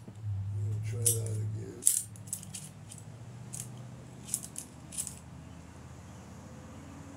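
Light metallic clicks and clinks of a valve spring compressor being worked onto a valve spring on a 454 V8's cylinder head, about eight sharp clicks over four seconds, the loudest about two seconds in, over a low steady hum.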